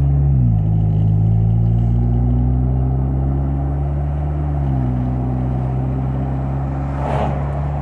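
Exhaust of a 2021 Chevy Silverado's 2.7-litre turbocharged four-cylinder running through a clamped pipe in place of the muffler, under gentle acceleration. Its pitch drops at two upshifts, about half a second in and near five seconds, and climbs slowly between them. It is fairly quiet for a muffler delete, with a slight leak at the unwelded pipe joint.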